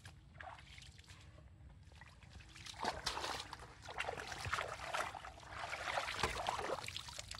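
Shallow pond water splashing and sloshing as a woven fish trap is handled and lifted in it, with water running off the trap. The splashing grows louder from about three seconds in.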